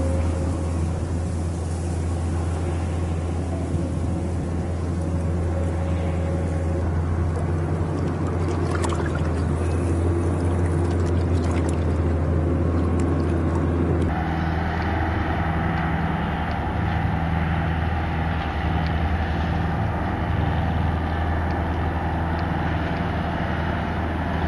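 A boat's engine running steadily across the water, a low even drone.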